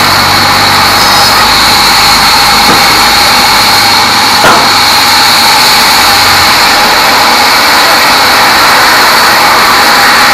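Log band saw running steadily: a loud, even machine noise with a steady high whine over it. A brief knock comes about four and a half seconds in.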